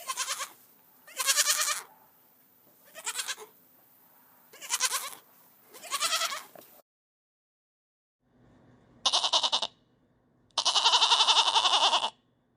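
Goats bleating: five separate bleats spaced a second or two apart. After a short silence, a second recording brings a short bleat and then one long bleat of about a second and a half.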